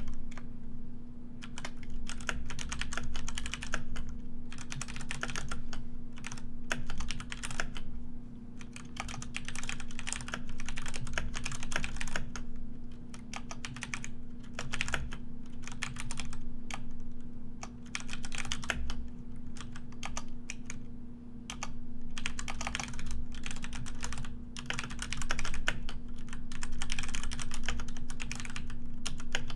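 Computer keyboard being typed on continuously: runs of rapid key clicks a second or two long, broken by brief pauses, over a steady low hum.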